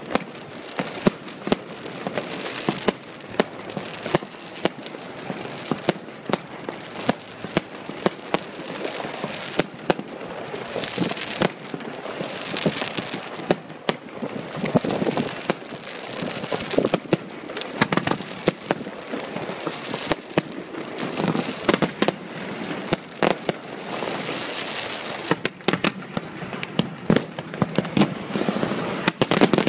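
Professional fireworks display going off: dozens of sharp bangs at an irregular pace from shells bursting overhead, over a continuous crackling hiss.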